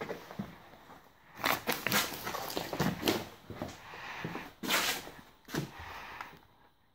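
Footsteps and handling noise: irregular rustles and knocks with no steady machine sound.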